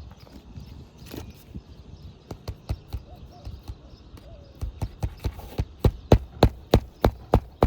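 Hammer blows on an asphalt shingle roof: scattered taps, then a steady run of sharp strikes at about three a second from about five seconds in.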